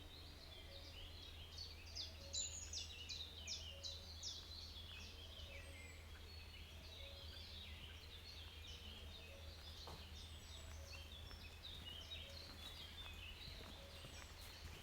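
Several birds singing: many short, high chirps and trills overlapping, over a faint, steady low rumble.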